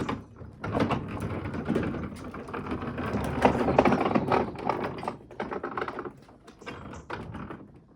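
Power driver sinking screws into wood: a fast, loud clicking rattle from about a second in, easing off after about four seconds into scattered clicks.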